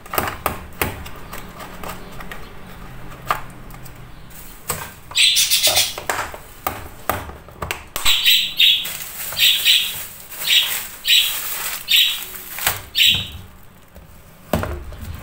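Plastic lunch box handled with a run of light clicks and knocks as biscuits go in, the lid is pressed shut and the front clip snaps closed. A bird chirps loudly over it, once about five seconds in and then about twice a second for several seconds.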